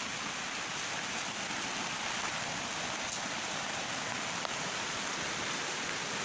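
Steady hiss of rain falling, with the rush of the flooded, muddy river beneath it.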